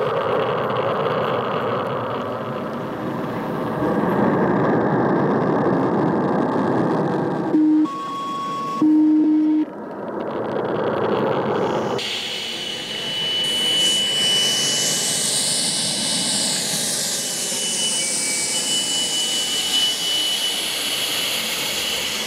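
Live electronic noise music mixed from received satellite radio signals: a dense hiss, broken by two short steady beeps about eight and nine seconds in, then switching abruptly to a steady high tone over a swirling, sweeping hiss.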